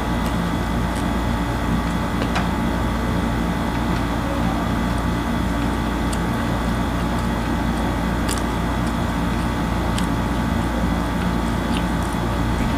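Steady mechanical hum with several held tones, with a few faint clicks from eating.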